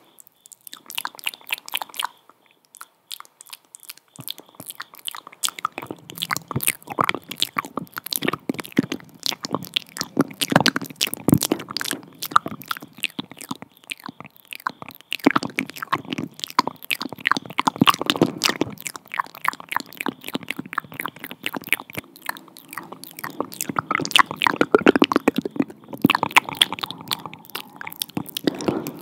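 Close-miked ASMR mouth sounds: rapid clicking and smacking of lips and tongue right at the microphone, with a short lull about two seconds in.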